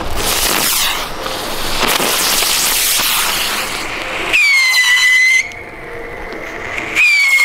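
Small whistling fireworks (chifladores) burning on the ground: a loud fizzing hiss for about four seconds, then two shrill whistles, each about a second long and dropping slightly in pitch, the second near the end.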